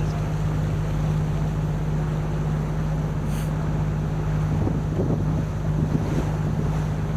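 Canal tour boat's motor running steadily as a low, even hum, with wind noise on the microphone.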